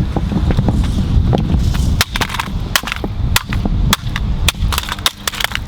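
A string of irregular sharp cracks and knocks as a plastic PS4 DualShock 4 controller is smashed and broken apart, over a low rumble.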